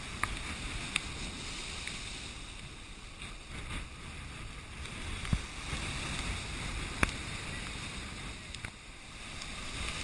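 Heavy storm surf breaking and churning against a rock revetment, a steady rushing roar mixed with wind on the microphone. A few sharp knocks cut through it, the loudest about seven seconds in.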